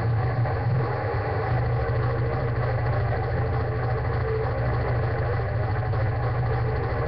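Heavily distorted electric guitar through an amplifier, a steady, thick low sound with little break between notes.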